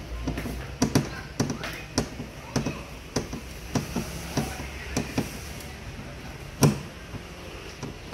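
Hand screwdriver driving a screw through a metal wall bracket into a wooden panel: a series of irregular clicks and creaks, roughly one or two a second, as the screw is turned in, with one louder knock late on.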